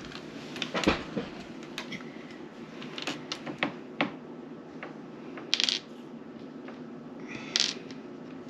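Small board-game pieces clicking and clattering on a tabletop, with two short rustling scrapes about five and a half and seven and a half seconds in.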